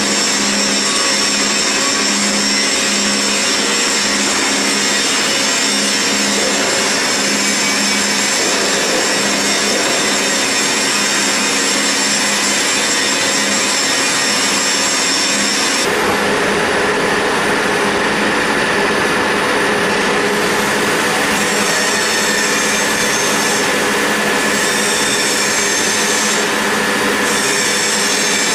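CNC roll turning lathe cutting grooves into a metal roll: a loud, steady grinding hiss of the tool in the cut, with steady high whining tones over it. The sound changes abruptly about halfway through.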